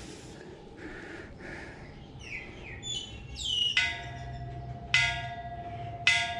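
Thai temple bell struck three times with a hand-held striker, about a second apart; each strike rings on with a steady, clear tone that carries underneath the next. Just before the first strike, a few quick high bird chirps fall in pitch.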